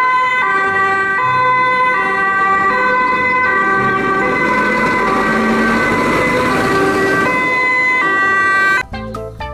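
Two-tone siren of a German fire engine, alternating between a high and a low note, each held for under a second, with a rushing noise swelling under it in the middle. It stops shortly before the end.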